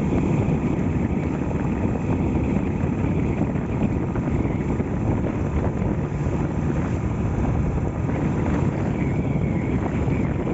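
Honda Astrea Grand's small four-stroke single-cylinder engine running steadily while riding, with wind buffeting the microphone.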